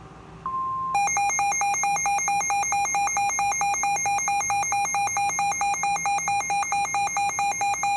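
Emergency weather alert tone: a short steady beep, then from about a second in a harsh electronic warble that alternates rapidly between two pitches. It is the attention signal that opens a new severe thunderstorm warning broadcast.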